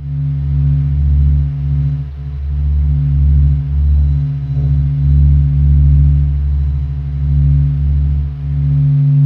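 Deep droning hum of a 'sound of space' sonification: a steady chord of low tones over a deeper rumbling layer that swells and dips irregularly about once a second.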